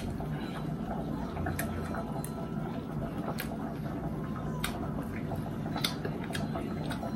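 Close-miked eating sounds: scattered small clicks and soft wet mouth noises as a metal spoon cuts into steak on a plate, over a low steady hum.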